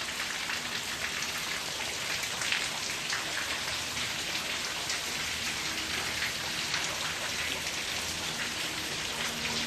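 Heavy tropical-storm rain coming down steadily, a dense, even patter of drops hitting surfaces.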